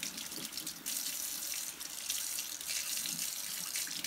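Kitchen faucet running steadily into a sink, its stream splashing over a brass lantern generator and the hands rinsing it.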